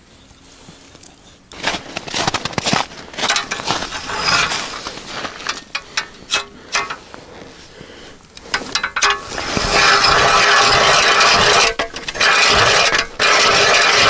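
A hand ice auger drilling into thick, wet river ice. Scattered scrapes and clicks come first, then from about two-thirds of the way in a loud, steady grinding scrape of the auger cutting the ice, with two short breaks as it is turned.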